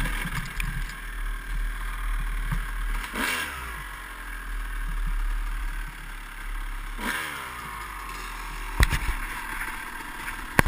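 Dirt bike engine running on a trail ride, its pitch climbing twice as the rider opens the throttle. Two sharp knocks near the end.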